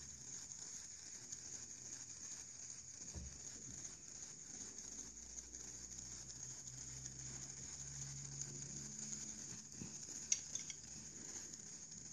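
Small tabletop Tesla coil's corona streamers sizzling steadily from the wire tips, a high, even hiss. One sharp click near the end.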